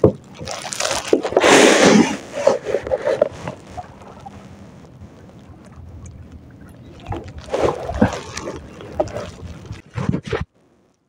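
Water splashing and sloshing under a wooden floating fish-cage walkway, with handling knocks, in two loud bursts. The sound cuts off abruptly about ten and a half seconds in.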